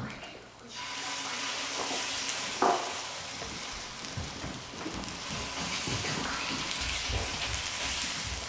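Kimchi pancake batter sizzling as it is spooned onto a hot oiled griddle pan. The steady frying hiss starts about a second in and carries on, with soft knocks as more batter goes in.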